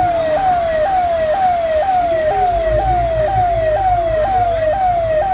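Siren repeating a short downward glide in pitch about twice a second, each sweep snapping back up and falling again.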